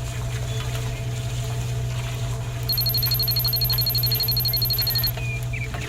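Rapid, high-pitched electronic beeping that starts a little under three seconds in and stops about two and a half seconds later, over a steady low hum.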